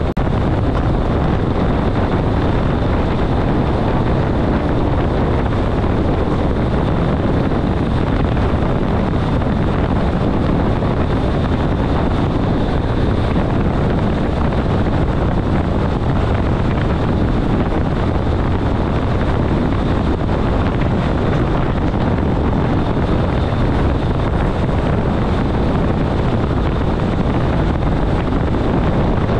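ÖBB class 4024 Talent electric multiple unit running steadily at about 140 km/h, heard from the driver's cab: an even rumble of wheels on the track and rushing air, with a faint steady high tone over it.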